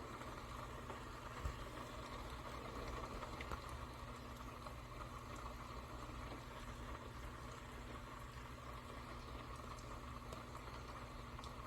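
Steady low background hum with a faint hiss, and a few faint ticks, one a little sharper about a second and a half in.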